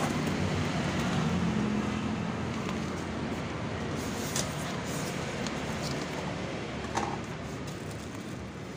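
Steady road-traffic noise with a low engine hum that fades over the first couple of seconds. A few faint clicks and rustles of plastic wrap and cardboard come through as a box is cut open and its wrapped contents handled.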